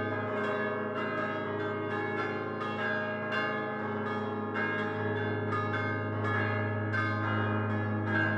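Full peal of five church bells cast by Prospero Barigozzi in 1928, hung fixed and rung by clappers swung by hand, sounding C4, A♭3, E♭3, C3 and A♭2. Strokes come in quick succession, several a second, over the ringing hum of the 3.5-ton tenor, which swells about five seconds in.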